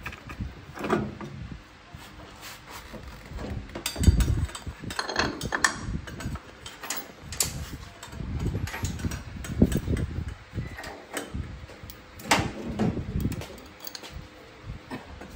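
Irregular knocks, clunks and metal clinks of scooter parts and hand tools being handled during repair work.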